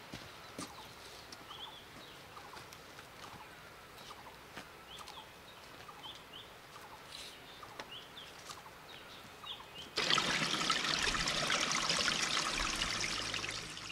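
A bird repeatedly gives short, high chirps over a quiet forest background. About ten seconds in, this cuts suddenly to the louder, steady rush of a stream running over stones.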